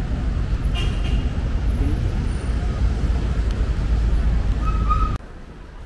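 Busy city street traffic: a steady low rumble of passing vehicles, which cuts off abruptly about five seconds in.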